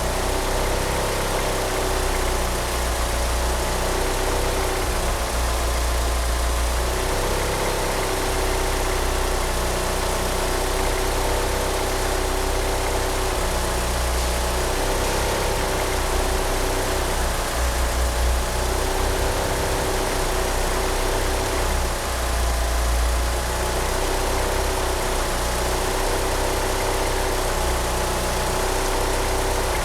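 Mitsubishi Eclipse GSX's turbocharged 4G63 inline-four idling roughly on 850cc injectors, the low rumble surging unevenly every second or two, with a steady whine from the slipping power-steering pump belt.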